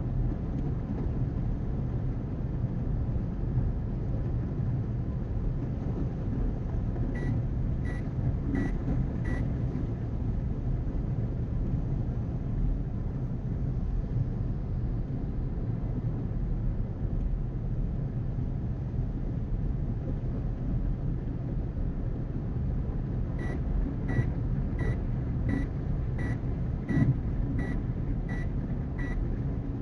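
Steady road and engine rumble inside the cabin of a car cruising on a highway. Two runs of short, high electronic beeps, about one every 0.7 seconds, sound over it: four about seven seconds in and about nine more in the last six seconds.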